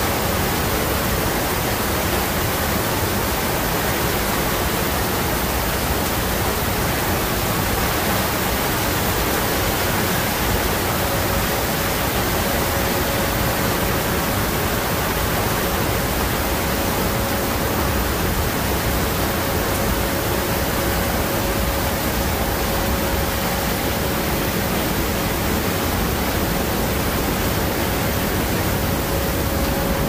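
Wind rush and engine noise through the open paratroop door of a military transport aircraft in flight: a loud, even rushing, with a steady hum coming in about ten seconds in.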